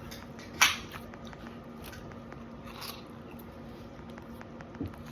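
Sticky, underactivated clear slime being squished and stretched by hand, with faint sticky ticks and one sharper pop about half a second in.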